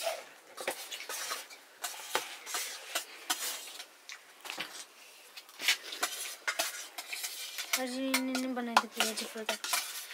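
Metal spoon clinking and scraping against a steel plate of rice, with many short irregular clicks. About eight seconds in, a short steady hum sounds for a second or two.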